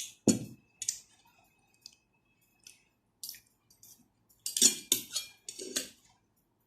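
Cutlery clinking and scraping against a bowl of noodle soup while eating: scattered sharp clinks, one ringing on briefly near the start, then a quick cluster of clinks and scrapes near the end.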